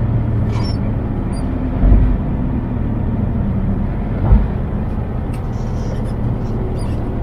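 Scania truck's diesel engine and road noise heard from inside the cab while driving, a steady low drone, with two short low thumps about two and four seconds in.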